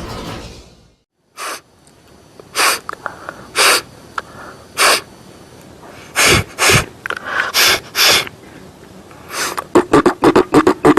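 A person sneezing, coughing and sniffling, in about half a dozen separate short bursts a second or so apart, acting out a head cold. Near the end comes a fast run of short vocal beats.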